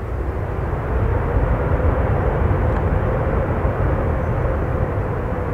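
Twin-engine widebody jet airliner's engines, a heavy low rumble with a faint steady hum, swelling to its loudest about two seconds in and then easing slightly as the jet moves away down the runway.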